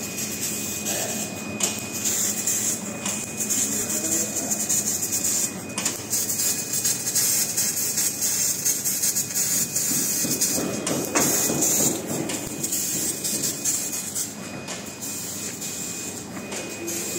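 CNC fiber laser cutting machine cutting a steel sheet: a steady hiss from the assist-gas jet at the cutting head, with a thin high whine running under it and some crackle.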